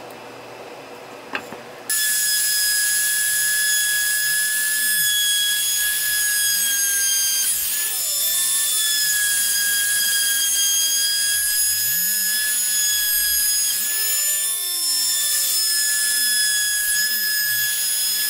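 Handheld trim router running and cutting along the edge of a wooden slat: a steady high whine that starts abruptly about two seconds in, its pitch dipping briefly twice.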